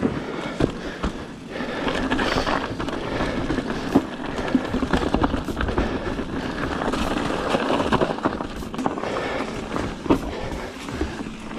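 Mountain bike ridden over a rocky trail: tyres crunching over rock and the bike rattling, with irregular knocks throughout.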